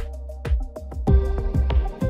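Electronic background music with a steady beat and bass; more instruments come in about a second in.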